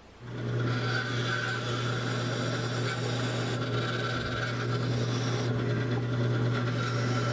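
Bandsaw running with its blade turned backwards while a grinding stone is held against the teeth, a steady motor hum under an even rasping scrape as the tips of the set are ground down to reduce the tooth set. The sound starts just after the beginning.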